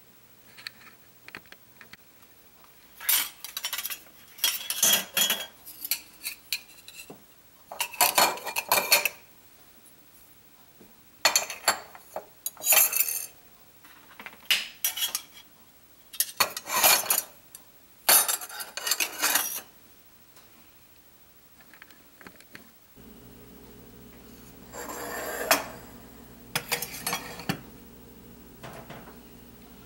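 Metal kitchen utensils (whisks, ladles and spoons) clattering and clinking against ceramic utensil crocks as they are handled and set down, in repeated bursts of a second or two. A low steady hum begins about two-thirds of the way through.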